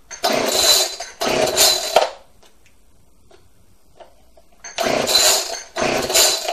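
Homelite chainsaw's recoil starter pulled four times, each pull a rasping whir of about a second. The pulls come in two pairs with a pause of a few seconds between. It is a cold start, and the engine does not catch.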